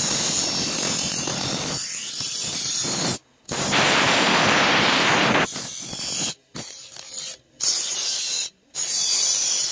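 Electric bench grinder's abrasive wheel grinding the steel edge of a sickle blade, a steady gritty rasp of metal on stone. The grinding grows louder for a couple of seconds in the middle, and the sound breaks off abruptly into short silences a few times.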